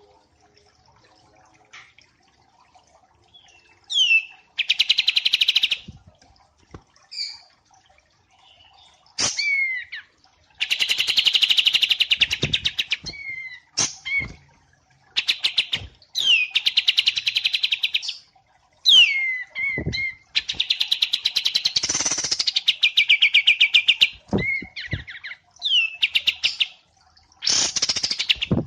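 Songbird song: quick down-slurred whistles, each followed by a loud, fast rattling trill lasting one to three seconds, repeated about five times.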